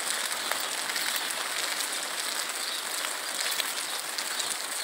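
Steady rain: an even hiss with faint, scattered taps of drops.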